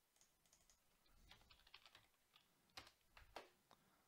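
Faint typing on a computer keyboard: a scattered run of key presses, thickest from about a second in, with a couple of louder strikes near the end.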